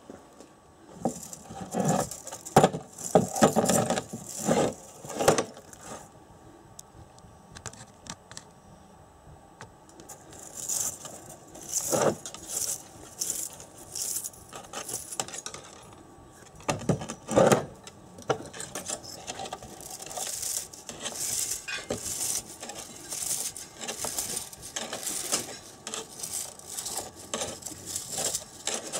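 Old copper winding wire being pulled and unwound off the field coil of a Honda CB650 alternator rotor, jingling and rattling against the steel rotor shell. There is a cluster of louder clatters in the first few seconds, two sharp knocks later on, and quick light clinks through the second half.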